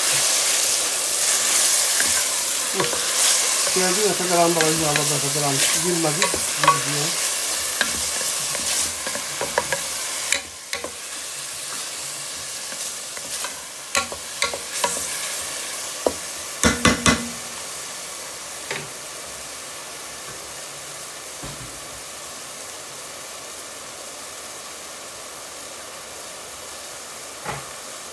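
Chopped onions sizzling in hot oil in an aluminium pot, stirred with a wooden spoon that knocks against the pot a few times in the middle. The sizzle is loud at first and dies down over the first half to a quieter steady hiss.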